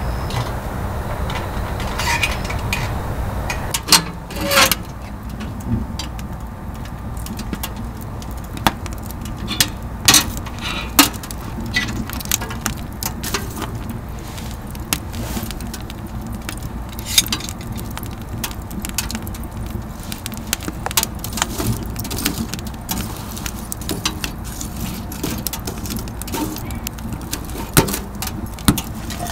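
Burning wood crackling in a Pomoly Baker Oven wood stove: irregular sharp pops and snaps over a steady low rumble.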